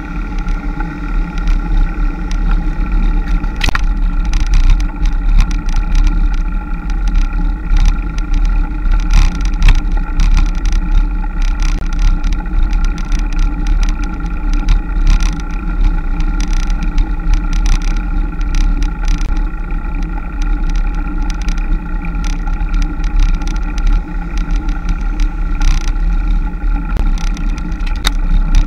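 Wind rumbling and buffeting on the microphone of a bike-mounted camera during a road-bike climb, gusting up and down, over a steady droning tone that does not change.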